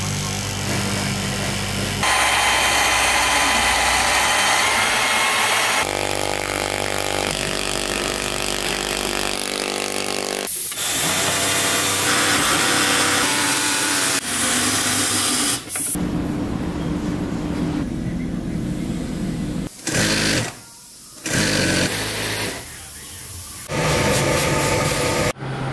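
Electric cloth-cutting machines slicing through stacked denim and an industrial sewing machine running, one after another. Each is a steady motor whine with a hum, and the sound changes abruptly every few seconds.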